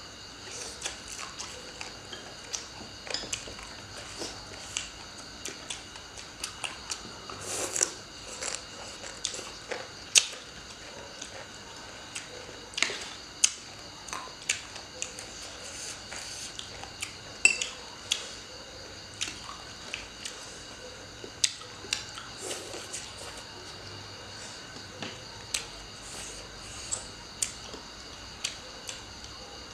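Chopsticks and spoons clicking and scraping against plates and bowls in short, irregular sharp clicks, with chewing of papaya salad between them.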